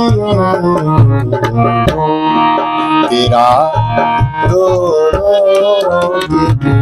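A man singing a song to his own harmonium, the harmonium's held reed chords under a gliding vocal line, with a steady run of drum strokes.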